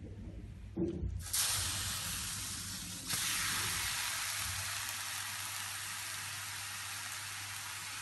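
A wet cloth put down on a laboratory hot plate heated to 300 °C: a soft knock as it lands, then the water sizzles and hisses steadily as it flashes to steam, growing louder about three seconds in.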